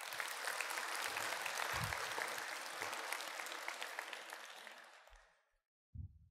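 Audience applauding, a dense patter of many hands clapping that fades out about five seconds in, followed near the end by a brief low thud.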